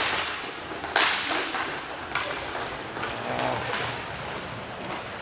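Sharp cracks of inline hockey sticks and puck striking during play: one right at the start, a louder one about a second in and a softer one about two seconds in, each echoing briefly in the rink hall.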